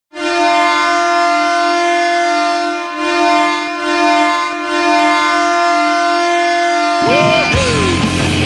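Ottawa Senators arena goal horn blaring, one long steady multi-tone blast that briefly dips about three seconds in. About seven seconds in, the horn gives way to loud rock music, the goal song.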